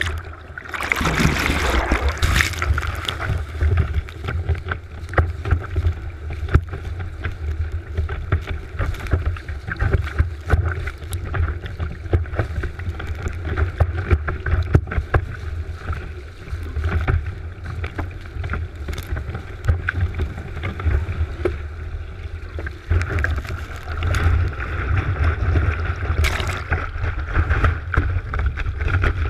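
Wind buffeting a board-mounted GoPro's microphone with a steady low rumble, over water rushing and spraying against a kiteboard as it skims across the surface, with many small sharp ticks of spray. The splashing swells louder about a second in and again near the end.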